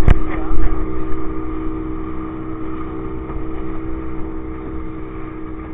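Small motorboat's engine running at a steady speed under way, with the rush of water and wind around the hull. A sharp knock comes right at the start, and the noise is rougher for the first second or so before it settles.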